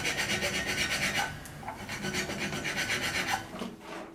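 Hand file rasped quickly back and forth on a stringed instrument's fretboard during repair, in two runs of rapid strokes with a short pause between them.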